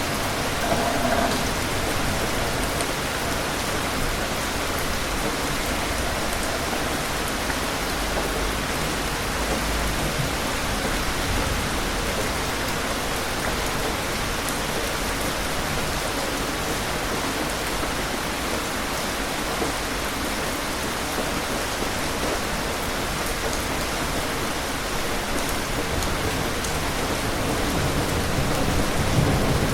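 Steady rain falling, with low rumbles of distant thunder: one about a third of the way in and a louder one swelling near the end.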